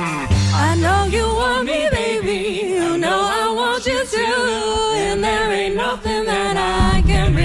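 A live band singing a passage of multi-part vocal harmony, several voices with vibrato together; the bass and low instruments drop out about a second and a half in and the full band comes back in near the end.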